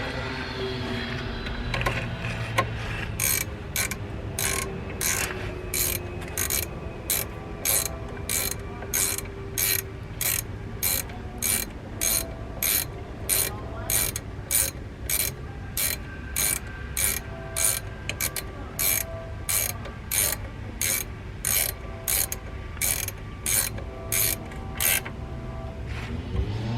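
Hand ratchet wrench being worked back and forth on a bolt, its pawl clicking about twice a second in an even rhythm that starts about three seconds in.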